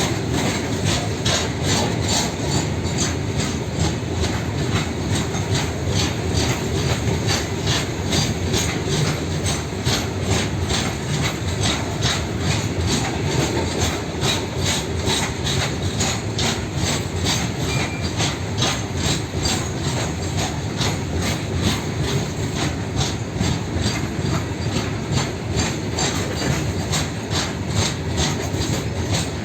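Freight train wagons rolling past, the wheels clicking over rail joints in a steady, even rhythm.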